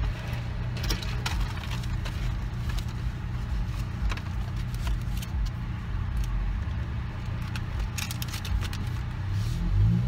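Steady low rumble inside a stopped car's cabin, with scattered light clicks and rustles of handling.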